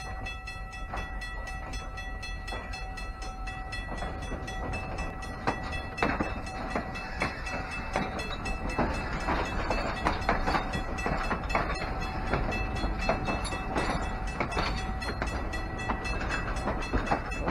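Passenger railroad coaches rolling past on jointed track, their wheels clicking and knocking irregularly over a steady low rumble. The clicks grow more frequent from about six seconds in as the cars reach the listener.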